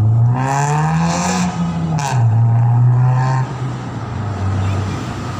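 City bus engine running and pulling away past the microphone, its pitch rising over the first second and a half and then holding steady, with a sharp click about two seconds in.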